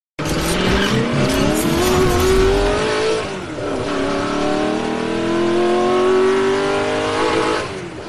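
Race car engine sound effect revving hard, its pitch climbing for about three seconds, dipping, then climbing again before fading near the end.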